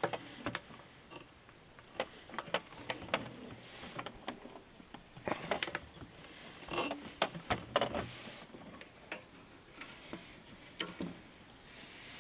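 Irregular small clicks and knocks of hand tools and metal parts being handled, in clusters with short pauses between.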